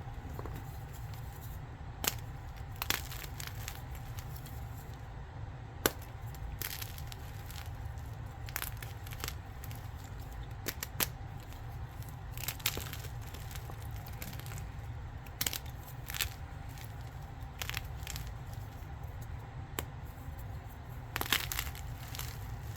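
Block of gym chalk being crushed: irregular sharp crunches and crackles, one every second or two with a few short clusters. A steady low hum runs underneath.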